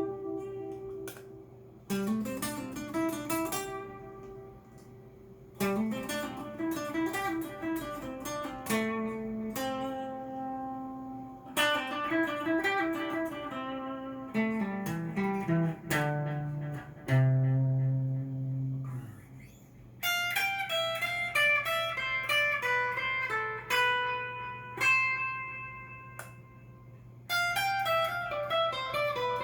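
Cort S series electric guitar played clean through a Fender amp. Chords are struck and left to ring in short phrases, a descending run of low notes comes a little past halfway, and higher melodic notes follow in the last third.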